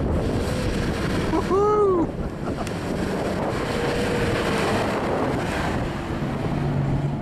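V6 four-wheel drive's engine working hard as it climbs through soft sand and passes close, its tyres throwing sand, with wind buffeting the microphone.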